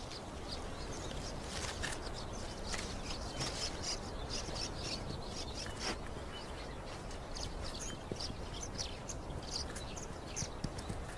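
Outdoor bush ambience: short bird chirps come here and there over a steady background hiss.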